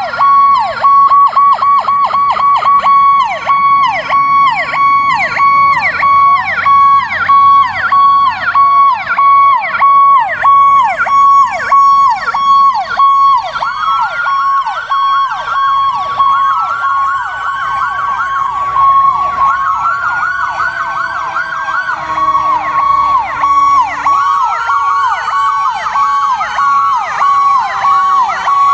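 Several fire apparatus sirens sounding loudly together. Electronic sirens yelp in fast rising-and-falling sweeps over a rapidly pulsing steady tone, while a mechanical Federal Q siren's wail slowly falls underneath.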